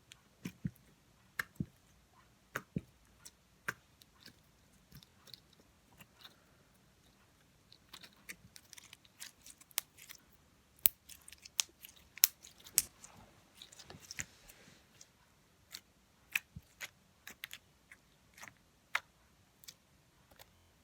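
Clear, clicky slime being squeezed and twisted by hand, giving irregular sharp clicks and pops that come thickest and loudest in the middle.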